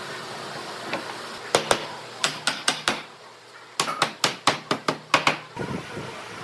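Hammer tapping on wood: a run of about six sharp strikes, then after a short pause a quicker run of about eight.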